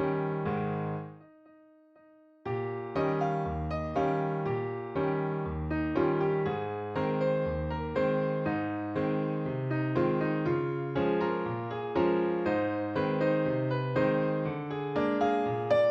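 Background music: a melody of evenly struck, piano-like notes. It breaks off about a second in and comes back about a second later.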